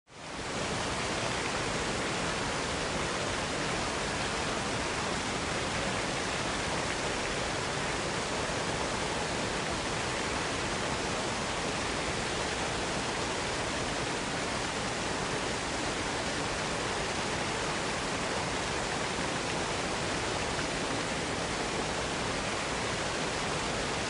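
Steady rushing noise of falling water, an even hiss that fades in over the first half-second and then holds unchanged throughout.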